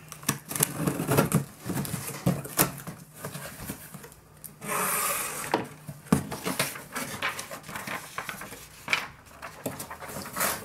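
Cardboard shipping box being cut open and unpacked by hand: scraping, knocking and rustling of cardboard flaps and packing paper, with a ripping sound about a second long near the middle.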